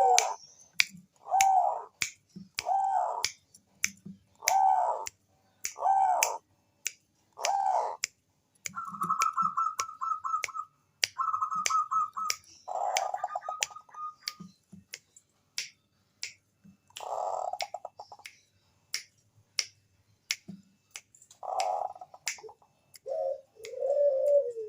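Zebra dove (Bangkok-type perkutut) cooing: arched coos repeat about every second and a half, with a rapid run of short notes in the middle. Sharp clicks tick steadily through it, about two a second.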